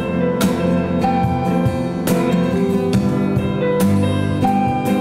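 Live acoustic band playing an instrumental passage of an alternative rock song: acoustic guitar, held electronic keyboard notes and cajón hits, with no singing.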